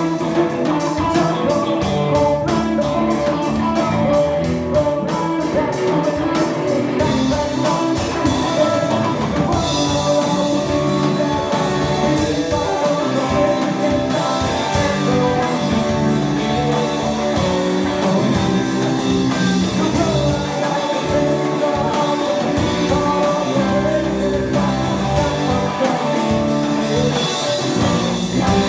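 Live band playing a rock-style song on drum kit and guitar, with singing.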